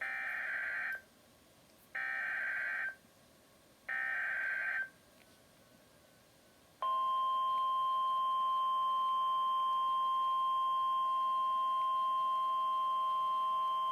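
Emergency Alert System SAME header: three screechy bursts of digital data, each about a second long and two seconds apart. About seven seconds in, the steady single-pitch 1050 Hz National Weather Service warning alarm tone starts and holds unbroken, signalling an alert that is about to be read.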